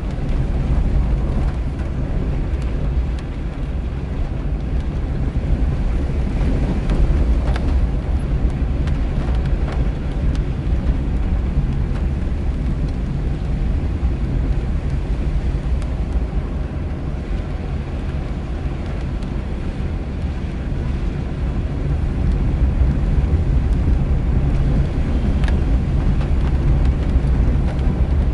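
Car driving on a wet road, heard from inside the cabin: a steady low rumble of engine and tyres with a hiss of wet tarmac, with a few faint ticks.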